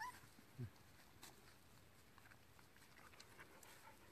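Mostly near silence: the tail of a faint high squeak from a three-week-old springer spaniel puppy right at the start, a brief low falling sound just over half a second in, then only faint scattered clicks and rustles.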